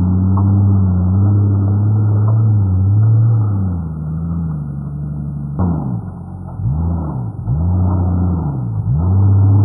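Nissan GU Patrol's RB25 Skyline turbo straight-six pulling under load as the lifted 4x4 crawls over rocks, its pitch rising and falling with the throttle. In the second half it is revved up and down in several quick blips.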